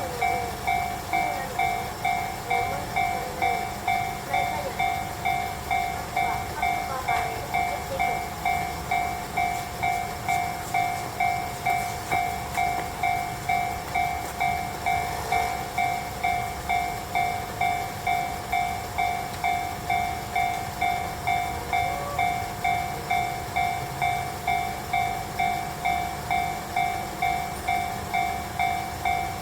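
Japanese railroad crossing warning bell ringing a steady, evenly spaced "kan-kan" tone: the crossing is closed with a train due.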